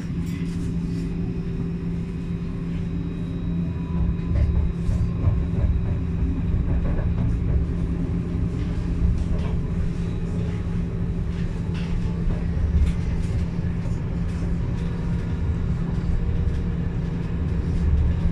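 Alstom Citadis 402 tram running, heard from the driver's cab: a steady electric hum over an uneven low wheel-on-rail rumble that grows a little louder about four seconds in, with scattered faint clicks.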